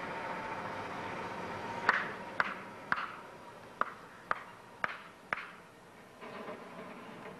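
Footsteps: seven sharp steps about two a second, with a short pause after the third, each leaving a brief ringing echo, over a steady hiss.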